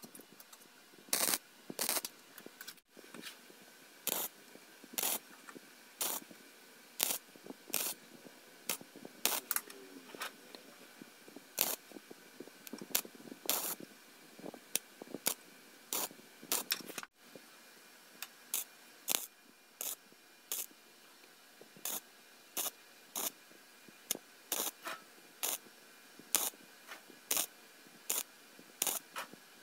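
MIG welder laying a row of short tack welds along a thin galvanised steel seam, each weld a brief burst, about one or two a second.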